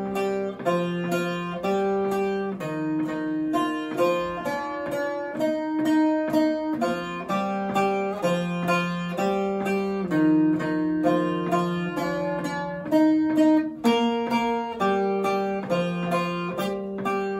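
Short-neck bağlama played with a plectrum (tezene), picking out a Turkish folk melody note by note in quick, steady strokes.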